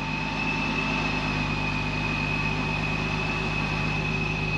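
Supercharged 3.7-litre V6 of a Nissan 370Z Nismo idling steadily at the exhaust tips, with a steady high whine over the exhaust note.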